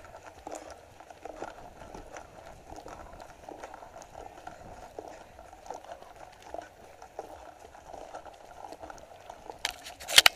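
Running footsteps on a gravel and dirt trail, about two strides a second, picked up by a camera worn on the runner's cap. A few loud knocks near the end.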